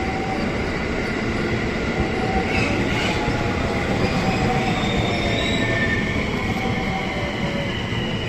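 Train moving along a station platform, with a steady rumble of running noise and thin high squeals from the wheels and brakes that are strongest in the middle.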